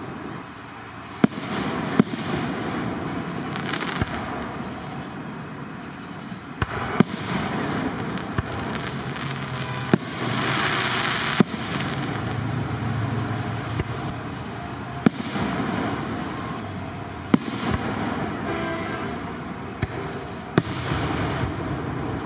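Aerial firework shells bursting in a fireworks display: about ten sharp bangs at irregular intervals, with continuous rumbling noise between them.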